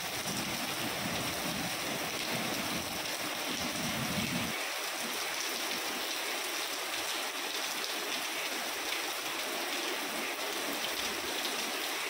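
Heavy rain falling steadily, a dense even hiss. About four and a half seconds in, the deeper rumble beneath it drops away and only the higher hiss of the rain goes on.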